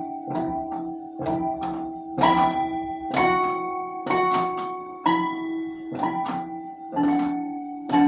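Instrumental music between sung lines: ringing notes struck about once or twice a second, each left to sustain.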